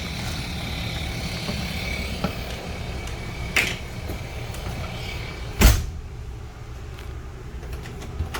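Steady low, engine-like rumble with a click, then a loud thump a little over halfway through, fitting the travel trailer's entry door being shut. After the thump the background is quieter.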